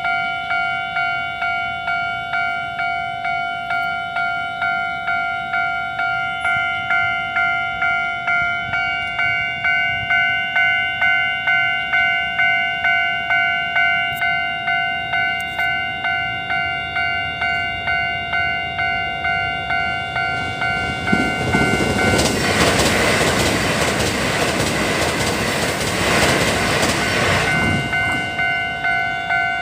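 Taiwanese level-crossing alarm ringing a steady repeating ding, about one and a half strokes a second. About two-thirds of the way in, a Tze-Chiang limited express electric train, an EMU3000 'Super Puyuma', rushes through the crossing for some seven seconds with a loud rush of wheels on rail, nearly drowning the alarm, which rings on after it has passed.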